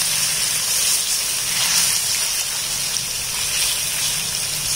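Marinated chicken pieces sizzling steadily in hot oil in a stainless steel kadai as they are turned by hand, with a faint steady low hum underneath.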